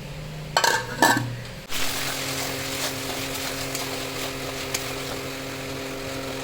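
A few knocks and clinks of kitchen utensils, then from about two seconds in a steady mechanical hum with a hiss that holds on unchanged.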